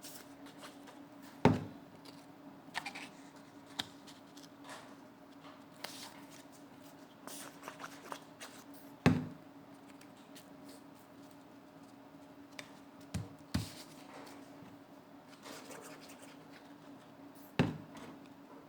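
Cardboard toilet-paper-roll pieces and paper being handled and glued onto a notebook page on a tabletop: soft rustling and small clicks, with about four sharp knocks on the table spread through. A faint steady hum runs underneath.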